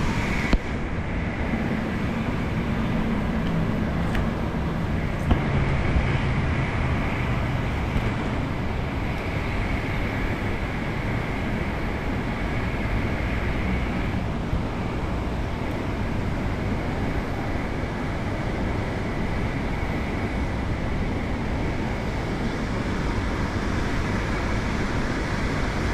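Steady traffic noise, with a motor vehicle's engine hum passing during the first several seconds and a couple of small knocks.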